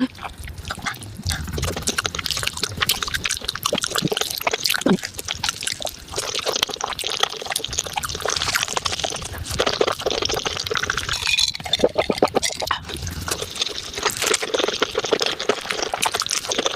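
Close-miked wet chewing and slurping of spicy beef feet, sped up so the sticky smacks and squelches run together into a dense, rapid stream of clicks.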